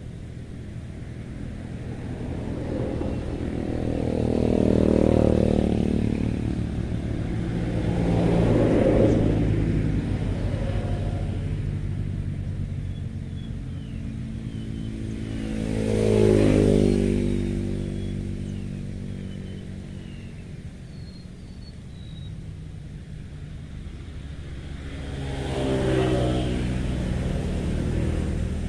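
Motor vehicles passing one after another on a nearby road, four passes in all, each swelling up and fading away with its engine pitch dropping as it goes by, over a steady low traffic rumble.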